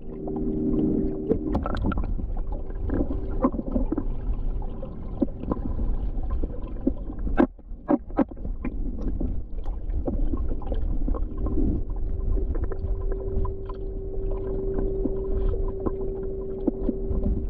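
Swimming pool heard underwater: a low rumble with bubbling and scattered clicks and pops, and a steady hum that grows clearer about two-thirds of the way through.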